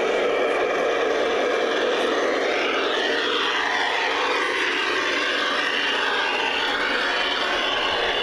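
G scale model steam locomotive and train running along garden railway track: a steady whirring rolling noise of motor and wheels on rails. From about three seconds in, tones sweep up and down as it runs onto a truss bridge.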